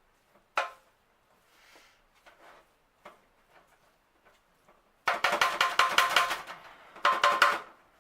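A sharp clink, then a loud quick run of metallic clattering and scraping from cookware handled in the kitchen, in two spells, the second shorter and ending near the end.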